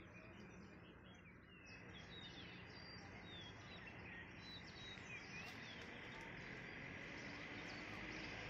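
Faint outdoor ambience: a steady low hiss with a few distant small birds chirping now and then.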